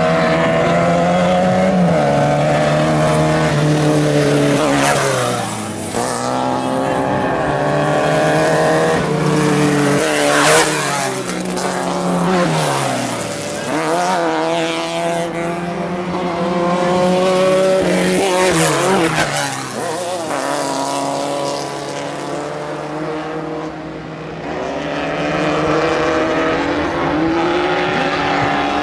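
Off-road racing buggy engines at full throttle, the revs climbing and then dropping sharply with each gear change, several times over; more than one engine note overlaps.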